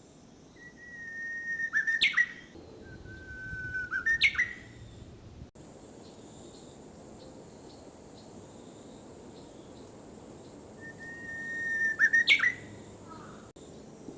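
Japanese bush warbler singing its "hō-hokekyo" song three times: each a long steady whistle that swells, then ends in a quick rising flourish. The first two come close together, and the third follows after a gap of several seconds.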